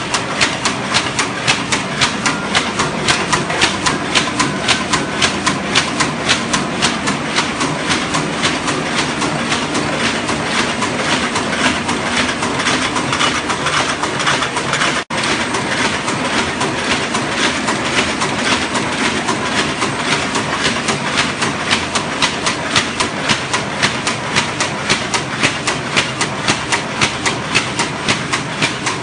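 Paper carton erecting machine running, a fast, even mechanical clatter of about three strokes a second as it forms boxes. The sound drops out for an instant about halfway through.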